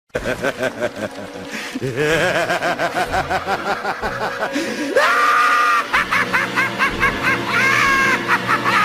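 A psychopathic, Joker-style maniacal laugh: rapid pulsed ha-ha-ha laughter, lower at first, climbing in pitch about five seconds in to a higher, louder cackle that runs on until it stops abruptly.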